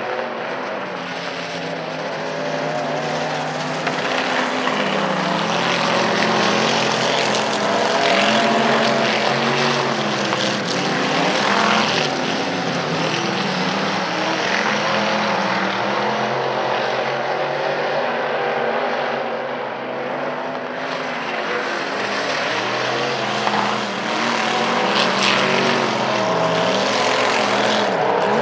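Several dirt-track modified race cars running laps together, their engines overlapping, with pitches rising and falling as the cars go around.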